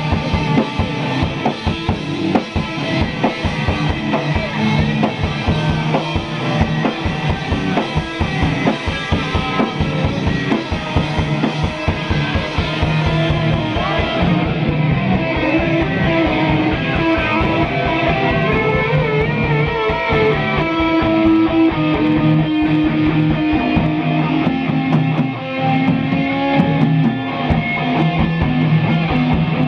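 Live noise music: a fast, dense pulse of hits under a low sustained drone, with distorted, warbling pitched tones layered on top from about halfway through.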